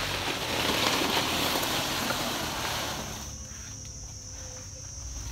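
Rustling and crackling of bunches of areca nuts on their stalks being handled and moved, loudest over the first three seconds and then dying down.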